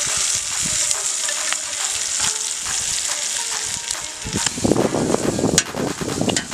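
Bacon sizzling on a flat steel griddle, a steady high hiss with light clicks of tongs. About four and a half seconds in, louder sizzling and scraping as sliced onions and mushrooms are turned with tongs and a spatula on the steel.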